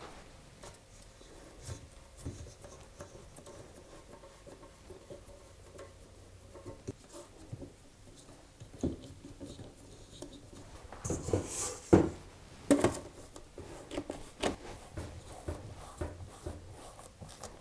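Hands pressing and rubbing shortcrust dough into a metal springform pan, soft rustling and patting with a few sharper knocks against the pan about twelve seconds in.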